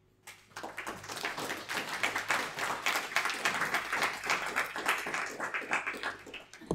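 Audience applauding, the clapping swelling over the first two seconds and then holding steady.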